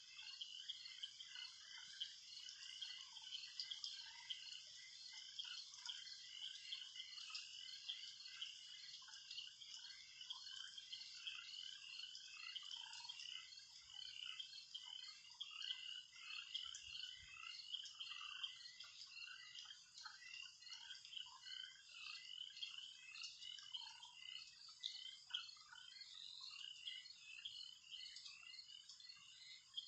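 A faint, dense, continuous chorus of many short chirping animal calls.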